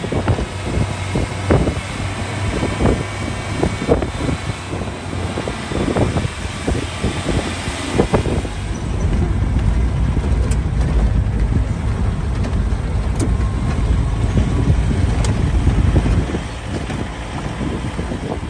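Off-road jeep driving over a rough track: low engine and tyre rumble with knocks and rattles over bumps, turning into a steadier, louder rumble about halfway through.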